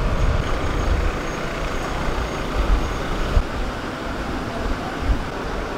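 Bus engine running at the kerb, a low rumble that is heaviest in the first second and eases after.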